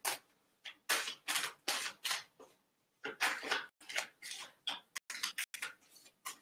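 A deck of oracle cards being shuffled by hand: a quick, irregular run of short card flicks and taps.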